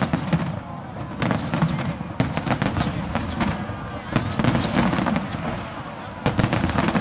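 Aerial fireworks shells bursting in clusters of sharp bangs and crackles, a new volley about every second, densest a little past four seconds in and again near the end.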